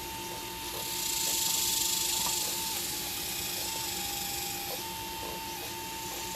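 Hydraulic pump motor of a radio-controlled Liebherr 954 excavator model whining steadily, its pitch dipping slightly several times. A hiss swells for about a second and a half a second in.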